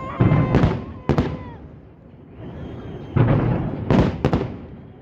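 Fireworks salute shells bursting overhead. Deep booms come about a quarter-second in and again around three to four seconds in, with sharp cracks about a second in and near four seconds, and the rumble fades between them.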